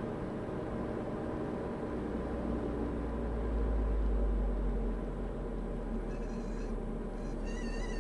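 Diamond DA40 cabin noise on final approach: the engine running at reduced power under a steady rumble, which swells briefly about halfway through. Near the end, short high warbling tones sound twice.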